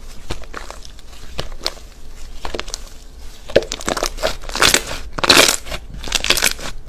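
Black slime being squeezed and pressed by hand, giving an irregular run of sticky pops and crackles. Louder bursts of crackling come in the second half.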